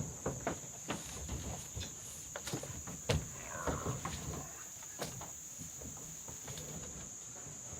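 Steady high-pitched chirring of crickets, with scattered light knocks and rustles.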